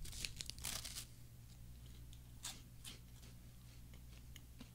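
Biting into and chewing a dry, crumbly Pokémon chocolate wafer: a cluster of crisp crunches in the first second, then a few fainter crunches.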